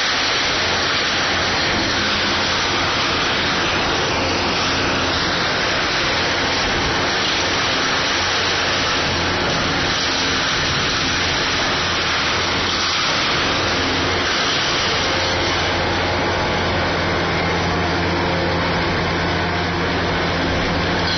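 KOBELCO SK500 hydraulic excavator's diesel engine running steadily, under a loud, even hiss with no distinct knocks or crashes.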